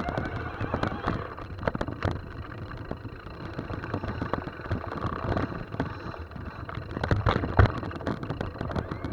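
Mountain bike riding over a rough trail: steady tyre rumble with frequent irregular knocks and rattles from the bike.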